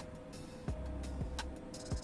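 Background music with a steady beat: regular kick-drum thumps over a held bass line.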